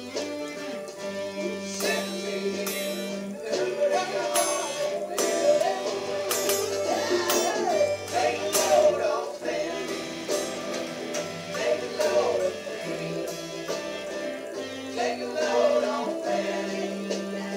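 A recorded song with a male voice singing over a band plays from a computer, with a Fender Stratocaster electric guitar played along to it.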